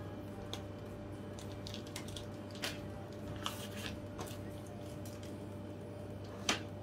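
Faint crinkling of cellophane shrink-wrap and light clicks of a plastic CD jewel case being handled, with a sharper click about six and a half seconds in, over a steady low hum.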